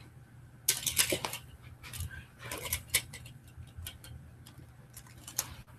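Die-cast toy monster trucks clicking and clattering against each other as they are handled. The clatter comes in short bunches about a second in, around three seconds, and once more near the end.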